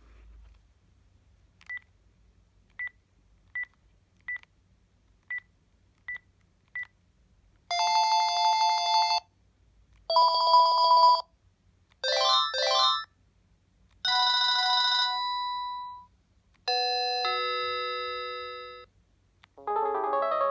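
Panasonic KX-TG7321E cordless phone handset sounding seven short high beeps at one pitch. It then plays a run of different ringtones in turn, each one or two seconds long with a short gap between: a buzzing ring, a warbling trill, fading tones, and a fuller melody starting near the end.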